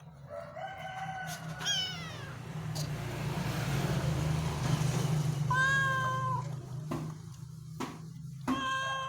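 Domestic cat meowing several times: about four meows, one falling in pitch and one held steady, with a few seconds of rough, breathy noise between them.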